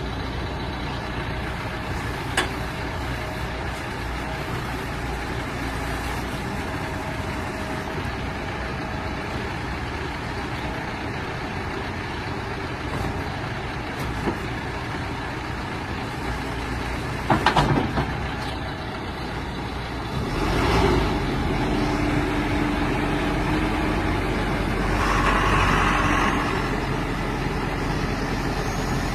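John Deere 310SL backhoe loader's 93 hp turbo diesel running steadily, with a few sharp knocks. About twenty seconds in it gets louder and a steady tone comes in over the engine.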